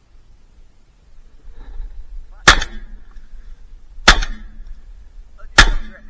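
Three shotgun shots fired at ducks, evenly spaced about a second and a half apart, each a sharp loud crack with a brief echo.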